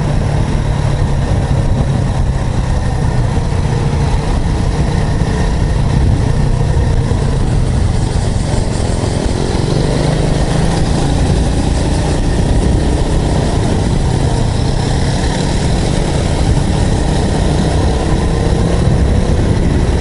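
Honda Super Cub's small four-stroke single-cylinder engine running steadily on the move, a dense low rumble whose note shifts a little now and then.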